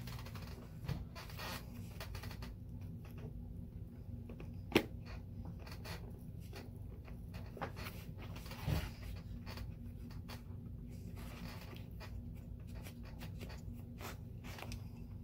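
Quiet hand-stitching on a leather boot: faint scratching and rubbing of the tool and thread drawn through the leather, over a steady low electrical hum. One sharp click comes about five seconds in, and a softer knock near nine seconds.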